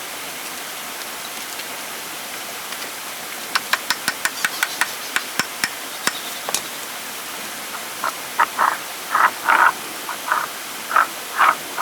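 Steady rushing of running water, with a quick run of sharp taps about a third of the way in, then a string of short, repeated calls near the end.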